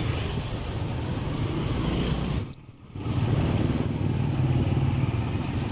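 Motorcycle engine running steadily while riding, with wind and road noise from the wet street. The sound drops out briefly about halfway, then comes back.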